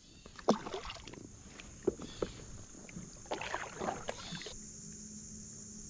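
A released bluegill splashing into the water, then several kayak paddle strokes dipping and pulling through the water.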